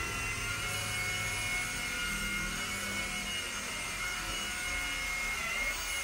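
F3 four-channel RC toy helicopter hovering: its electric motors and rotors give a steady high whine, dipping slightly in pitch near the end.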